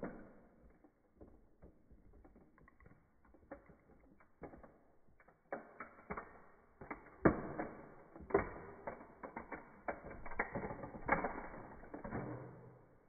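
White toy model Porsche 911 Carrera RS creaking and cracking under a high-heeled shoe pressing down on its roof: a string of sharp clicks and creaks, sparse at first, then denser and louder from about halfway through, with a few loud snaps.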